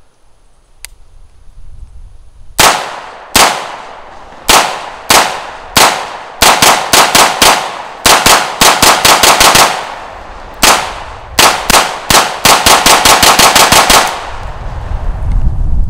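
Heckler & Koch SP5K 9mm semi-automatic pistol being fired: a few spaced single shots, then fast strings of rapid shots, each string several shots a second, stopping about fourteen seconds in.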